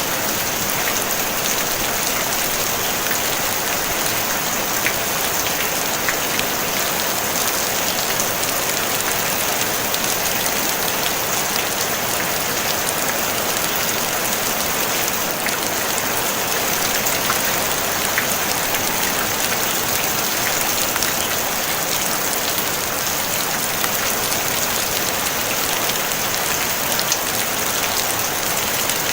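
Steady, gentle rain on a tin roof: an even hiss with the odd single drop ticking out of it.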